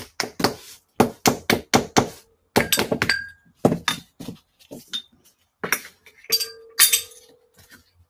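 Metal spoon tapping repeatedly on a flower-shaped bath bomb mold to loosen the bath bomb inside: a quick, irregular run of sharp clicks and clinks, a few of them ringing briefly.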